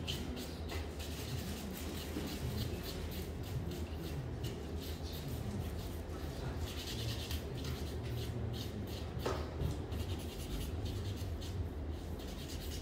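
Nail file scratching across toenails in quick repeated strokes, over a steady low hum.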